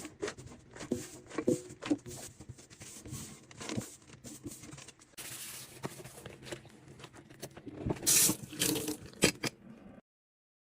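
Sink cleaning sounds: scattered clicks and knocks of things being handled, a short run of tap water a little past five seconds, and a louder rush of water and scrubbing around eight seconds. It all cuts off suddenly just before the end.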